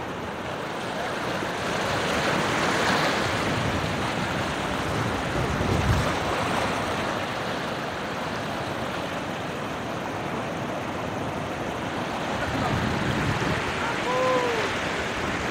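Sea surf breaking and washing over boulders, a steady rush of water that swells a couple of seconds in.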